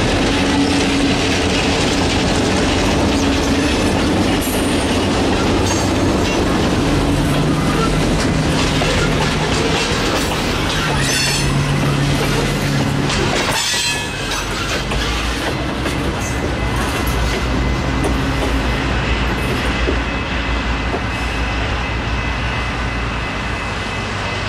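Diesel freight locomotives followed by tank cars rolling through a grade crossing, wheels clicking and squealing on the rails. The train clears about 14 seconds in, leaving a steady high ringing from the crossing signal and a low rumble.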